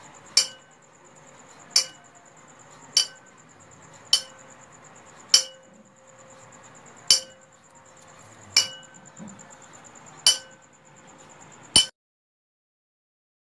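A small metal object tapped over and over, about nine ringing clinks spaced one to two seconds apart, used as a conditioning cue for a mouse, over a faint high-pitched pulsing tone. The sound cuts off abruptly near the end.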